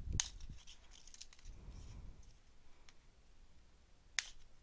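Scissors snipping the small plastic ties that fasten a piece of cloth to a cardboard toy package. There is a sharp snip just after the start and another near the end, with a few small clicks and low bumps from handling the card in between.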